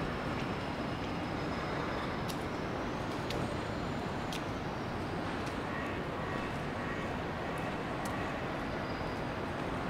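Steady wash of rain and city street traffic, with a few sharp ticks scattered through it.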